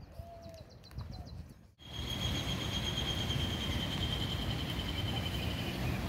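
Quiet outdoor ambience with a few short chirps. After a cut about two seconds in, a louder steady rushing noise comes in, with a high, even trill that stops near the end.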